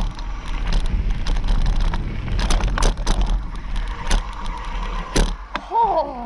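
Mountain bike descending a dirt trail: a steady rush of wind on the microphone and tyres rolling over dirt and gravel, with frequent sharp clicks and rattles as the bike goes over bumps. A brief steady whine about four seconds in, and a short falling pitched sound near the end.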